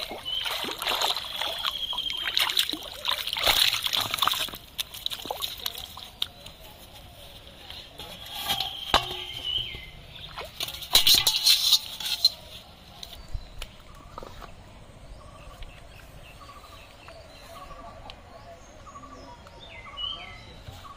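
A hooked fish thrashing and splashing hard at the water's surface for the first few seconds. About eleven seconds in there is another loud splash and slosh as the catfish is dropped into a metal bowl of water.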